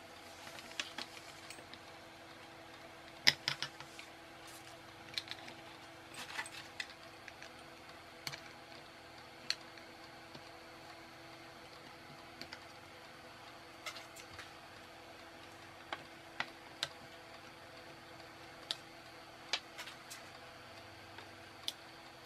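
Side cutters snipping the excess wire leads off a soldered circuit board: a series of sharp, irregularly spaced snips, the loudest about three seconds in.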